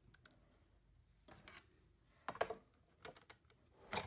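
Light handling clicks and taps of a clear plastic cutting plate and cardstock being set in place on a die-cutting machine's platform, a few scattered knocks with the loudest a little over two seconds in.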